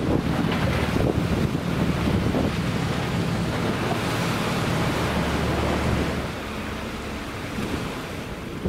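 Wind buffeting the microphone over the wash of sea water against a concrete breakwater. The wind eases somewhat about six seconds in.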